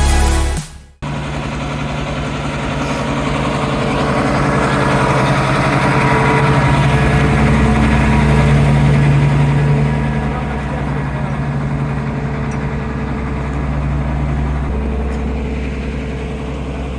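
Music cuts off about a second in, then an engine runs steadily, growing louder towards the middle and easing back near the end.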